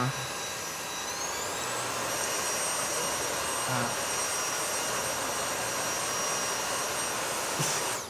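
Vorwerk Kobold VB100 upright vacuum cleaner running steadily, its motor whine rising in pitch over the first couple of seconds and then holding level over a dense rushing noise.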